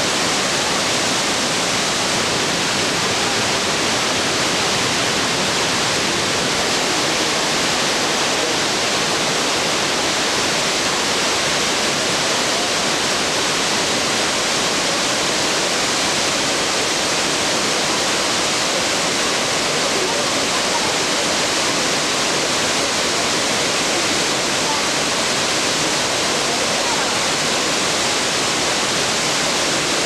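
Shiraito Falls: a steady, loud rush of falling water pouring into its pool, even and unbroken throughout.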